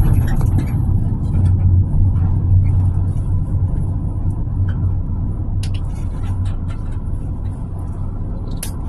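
Steady low rumble of a motor vehicle on the move, with a few faint clicks.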